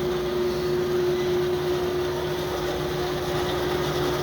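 Roll-In EF1459 vertical bandsaw running with its blade turning, not cutting: a steady hum with one constant tone.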